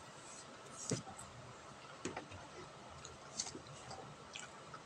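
Quiet eating sounds: scattered short clicks and smacks, about one a second, of cassava being torn apart by hand and chewed.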